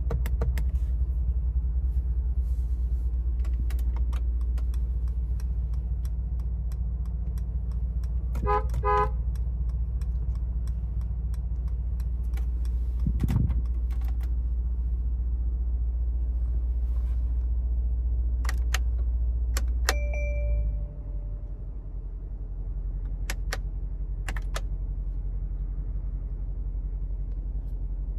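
A 2024 Mercedes-AMG G63's 4.0-litre biturbo V8 idling as a steady low hum, with scattered clicks and two short electronic chimes or beeps. The engine sound drops suddenly about two-thirds of the way through and settles lower.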